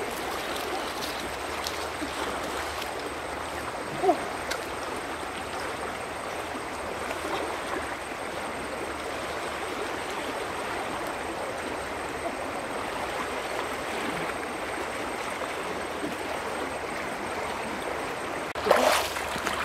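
Steady rush of a fast-flowing river, with a brief sharp sound about four seconds in and a louder burst near the end.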